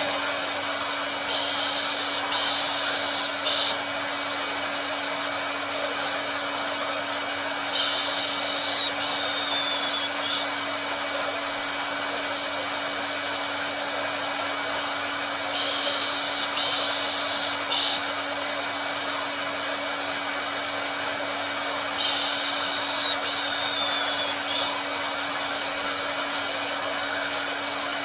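Hair dryer blowing steadily: an even rush of air with a low hum under it. Every few seconds there are brief spells of sharper, higher hiss.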